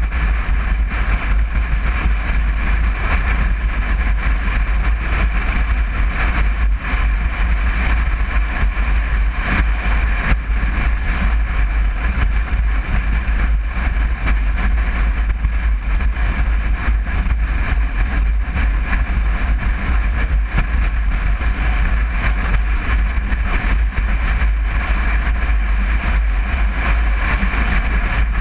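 1961 Volkswagen Bus's air-cooled flat-four engine running steadily on the road, with a constant low rumble and no change in speed.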